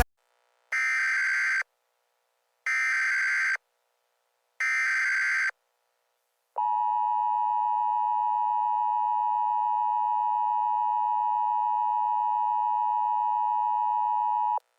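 Emergency Alert System SAME header: three buzzy data bursts of about a second each, followed by the two-tone EAS attention signal held steady for about eight seconds, announcing an emergency alert.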